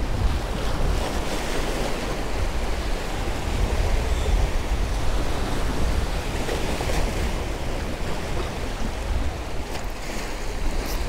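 Sea waves washing in and splashing against the rocks of a jetty, a steady surf wash, with wind buffeting the microphone as a low rumble underneath.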